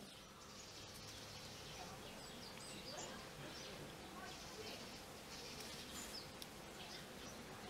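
Faint outdoor background noise with a few brief, high chirps scattered through it and a faint far-off murmur.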